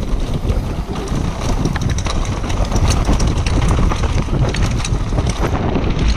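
Downhill mountain bike descending a dirt trail at speed: wind buffeting the helmet camera's microphone over the tyres running on dirt, with frequent rattling clicks and knocks from the bike.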